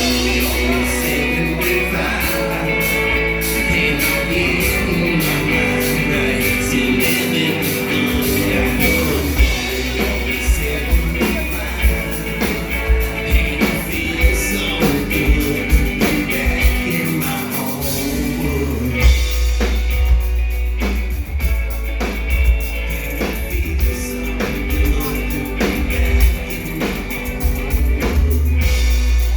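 Live rock-styled band performance: sung vocals over amplified guitar, bass and a drum kit, played loud. About two-thirds of the way through, the low bass and kick drum become heavier and the drum hits stand out more.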